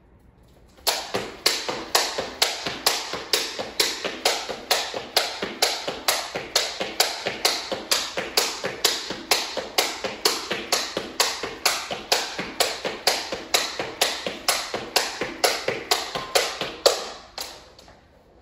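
Jump rope skipping on a hardwood floor: the rope slapping the floor and shoes landing in a steady rhythm of about three a second. It starts about a second in and stops a little before the end.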